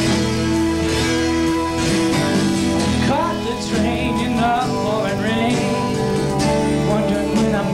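Live country song in an instrumental break between verses: acoustic guitar strumming chords, with a higher melody line bending in pitch over it from about three seconds in.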